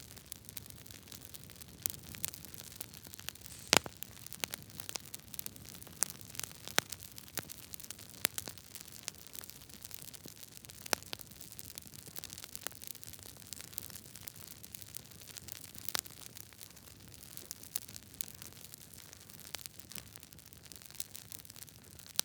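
Campfire crackling: irregular sharp pops and snaps over a soft steady hiss, the loudest pop about four seconds in.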